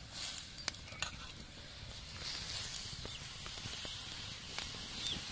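Pot of turmeric water boiling over a fire, bubbling and hissing steadily, with a couple of sharp plops in the first second as pieces of conch meat are dropped in.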